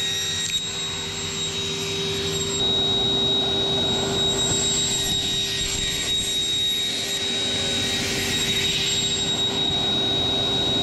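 Power saw running steadily as the glued-up veneer racket blank is pushed through on a sliding table. Its whine and noise grow stronger about two and a half seconds in.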